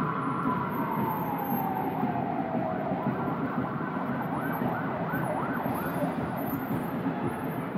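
Vehicle siren holding a steady high tone, then falling in pitch, then switching about four seconds in to a fast warble of about three cycles a second, over steady background noise.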